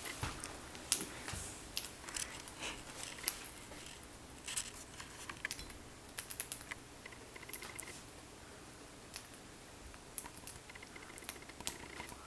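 Pet lovebird eating a snack: irregular small crisp clicks and crunches of its beak nibbling and cracking food, eagerly and without pause.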